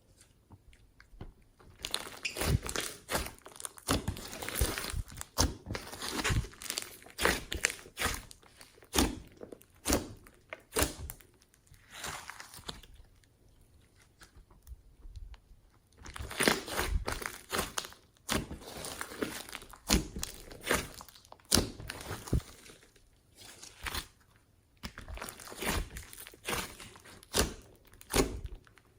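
Glossy slime being squished, stretched and folded by hand, giving rapid runs of sticky clicks and small pops, with a pause of a few seconds about halfway through.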